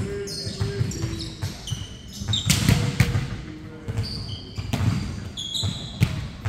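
Volleyball being hit and bouncing on a hardwood gym floor, several sharp smacks, among many short high squeaks of sneakers on the court.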